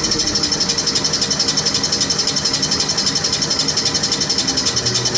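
Common-rail pump test bench driving a Bosch CP1 high-pressure diesel pump, a steady high hiss pulsing rapidly and evenly. The deeper running sound fades early on as the pump is slowed to cranking speed for a starting-pressure test.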